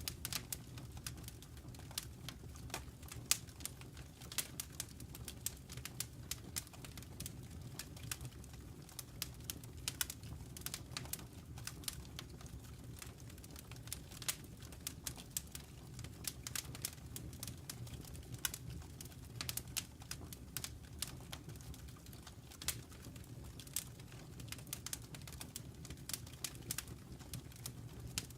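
Wood fire in a fireplace crackling: frequent, irregular sharp pops and snaps over a low, steady rumble.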